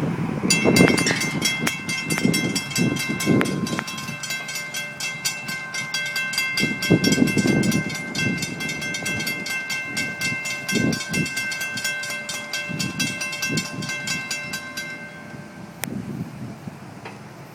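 Railroad grade-crossing bell ringing rapidly and steadily, then stopping abruptly near the end, over an irregular low rumble of wind or passing rail traffic.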